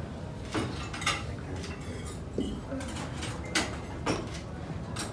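Tableware clinking at a set dinner table: about five sharp clinks of cutlery and glassware over a low room hum.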